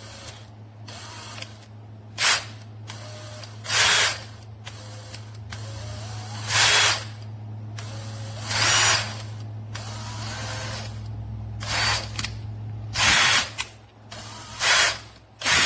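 Cordless drill run in short trigger pulls, about eight brief whirring bursts, while it is set to reverse: it has a fault where it sometimes spins forward instead.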